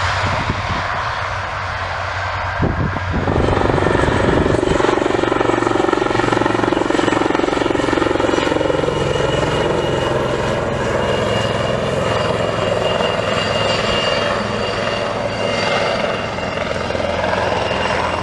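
For about the first three seconds, a turboprop airliner's engines drone low from the runway. Then a Wildcat military helicopter is heard flying low, its rotors and turbines giving a continuous sound with a steady high whine.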